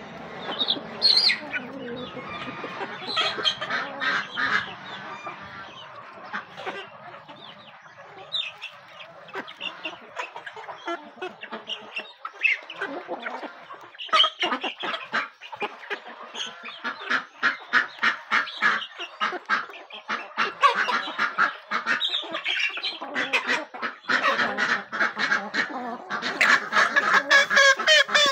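Flock of chickens and a duck feeding on rice: clucking and honk-like calls mixed with many quick taps. It gets busier and louder about halfway through and is busiest near the end.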